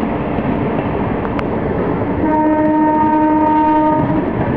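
Passenger coaches of an express train rushing past at speed behind a WAP-7 electric locomotive, a steady loud rumble of wheels on rail. About halfway through, a train horn sounds one steady note for about two seconds.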